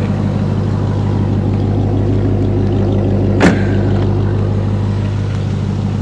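A car engine idling close by: a steady low hum that does not change. One sharp click sounds about three and a half seconds in.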